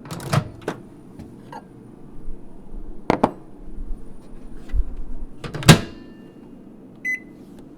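Microwave oven door handling: sharp latch clicks and knocks, the loudest a thump near six seconds as the door shuts, over a faint steady hum, then a single short keypad beep near the end.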